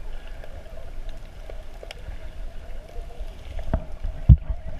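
Muffled underwater sound of sea water moving around a camera just below the surface: a steady low rumble with a faint hum and faint clicks, and one dull thump about four seconds in.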